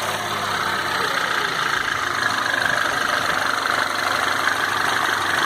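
Citroën C4 Lounge's turbocharged THP four-cylinder engine idling steadily after being revved, the diesel-like clatter of its cold start now settled into a smooth idle.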